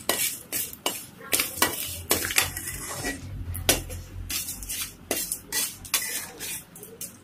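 Metal spoon scraping and clinking against an aluminium kadai, stirring a mustard-seed and dal tempering as it roasts in oil: short sharp strokes at an irregular two or three a second.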